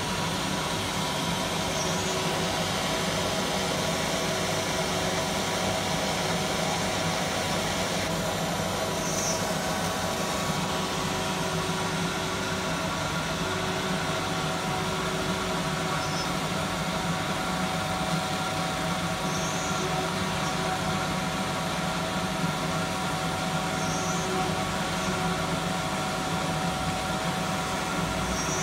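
Fiber laser marking machine running while it engraves an aluminium plate: a steady fan and motor hum with several constant tones, broken every few seconds by a short high-pitched chirp.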